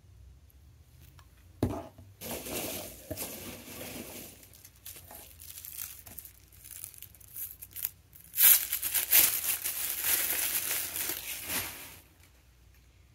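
A single knock, then wrapping crinkling and rustling as a small candle jar is unwrapped by hand, in two stretches; the second, from about eight to twelve seconds in, is the louder.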